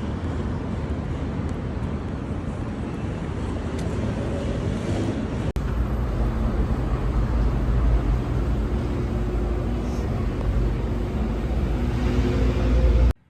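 Steady low rumble of a moving vehicle, with a brief dropout about five seconds in and an abrupt stop at the very end.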